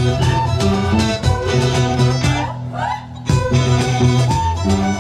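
Live folk band playing an upbeat tune: strummed acoustic guitars with fiddles and trombone. The full band drops out briefly about halfway through, then comes back in.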